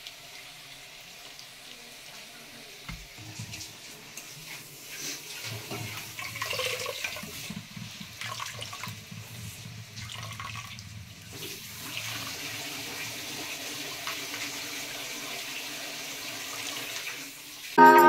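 Water dripping and trickling back into a steel pot as handfuls of boiled bathua (lamb's quarters) leaves are squeezed out by hand. Music comes in abruptly right at the end.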